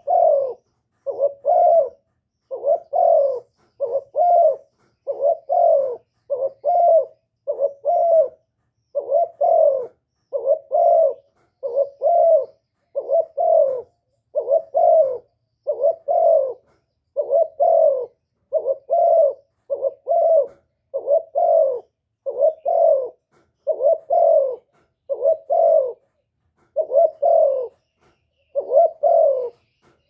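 Spotted dove cooing in a steady run of short double-note coos, a little more than one a second. This is the lure call that the title gives as a female calling a male.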